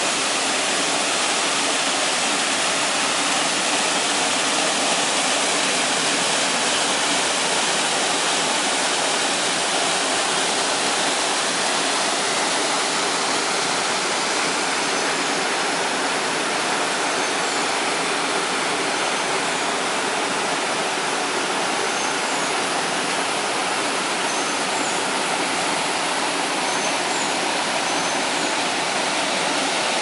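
Cloud-forest waterfall cascading into a pool: a steady, even rush of falling water.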